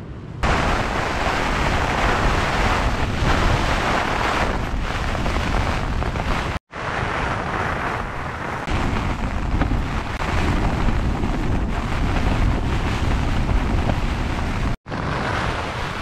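Gale-force wind and heavy rain lashing a Hilleberg Soulo tent's flysheet, heard from inside as a loud, steady rush. It drops out abruptly twice.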